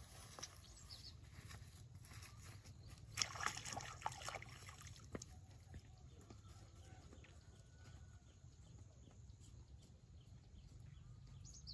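Quiet outdoor background with a steady low rumble and a brief rustling burst about three seconds in.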